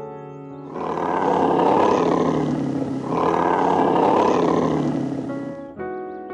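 Two long, rough animal roars back to back, each about two seconds, over background music. The music notes stand out before the first roar and again after the second.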